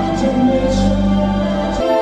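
Loud orchestral music with long held notes; a deep bass line drops out near the end while higher sustained notes carry on.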